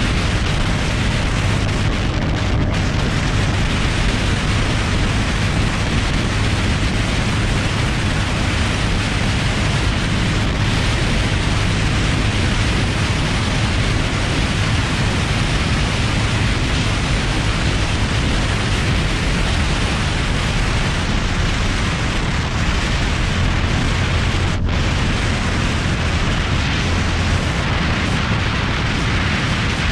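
Royal Enfield Classic 350's single-cylinder engine running steadily at highway speed, largely buried under loud, constant wind rush on the microphone.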